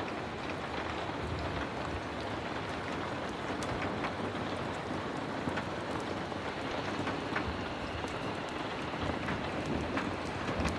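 Heavy rain falling steadily, a dense even hiss, with scattered small sharp ticks through it.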